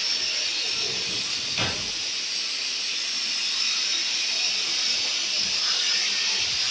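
Shower in an enclosed shower cubicle spraying water at very high pressure: a steady hiss.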